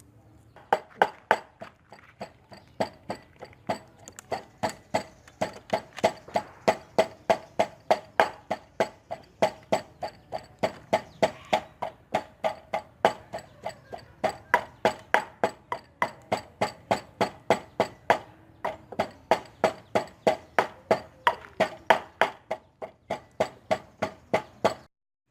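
Steady, rhythmic sharp knocks in food preparation, about two to three a second, each with a brief ringing. They go on for over twenty seconds and stop abruptly near the end.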